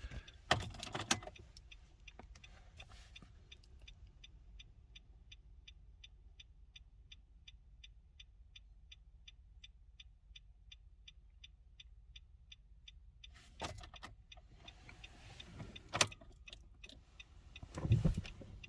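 2016 Nissan Rogue's hazard flasher ticking steadily, about three to four ticks a second, with the hazards switched on for key programming. Louder clunks and key rattles come about half a second in and again in the last five seconds.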